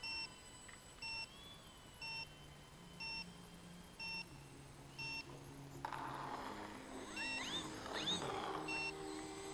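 Electronic beeper sounding a short high beep about once a second, steady and regular. From about two-thirds of the way in, a rushing noise joins, with two short rising whines close together.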